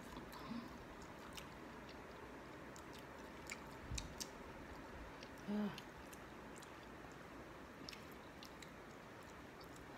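Faint chewing and biting of raw mango slices: scattered small clicks and mouth noises, with a short hummed "mm" about halfway through.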